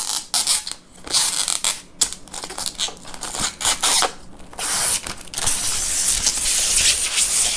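Protective plastic film being peeled off a PC case's glass side panel: a ragged tearing, crackling hiss in short stretches, then one longer unbroken peel in the second half.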